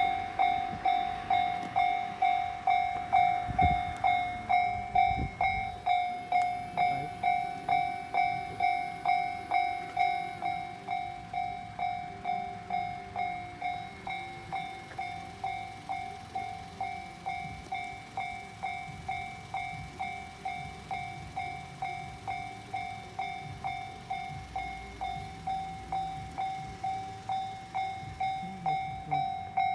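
Japanese level-crossing warning bell ringing, an electronic ding repeated steadily just under twice a second.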